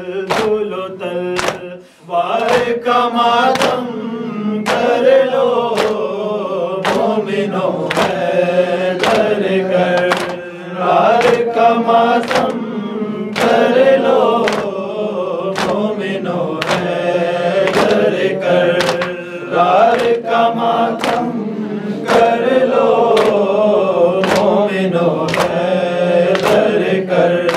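Group of men chanting an Urdu noha in unison while doing matam, beating their chests with open hands: sharp, even slaps about one and a half times a second under the chanted lament, with a brief pause about two seconds in.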